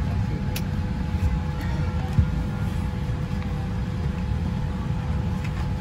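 Steady low rumble of cabin noise inside a Boeing 787-8 airliner, with a faint steady hum over it. A few light clicks and a small knock about two seconds in come from handling the in-flight magazine at the seat.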